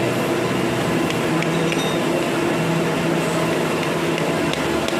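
A machine running steadily, a constant hum with a few faint light clicks.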